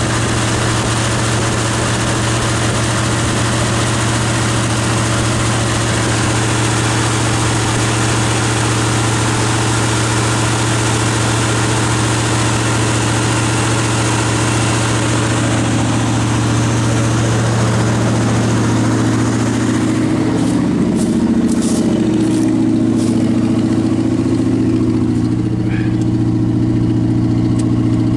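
The 5.7-litre LT1 V8 of a Chevrolet Caprice idles steadily; the owner says its idle will not settle at the proper rpm. The hiss thins after about 16 seconds, and a few light knocks come around 20 seconds in.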